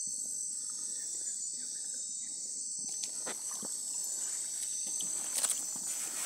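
Night-time crickets trilling in a steady high-pitched chorus, with a few light knocks about halfway through and a slightly louder one near the end.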